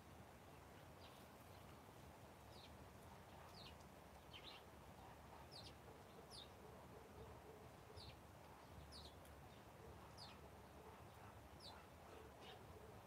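Faint small-bird chirping: short, high notes that drop in pitch, repeated about once a second over quiet outdoor background.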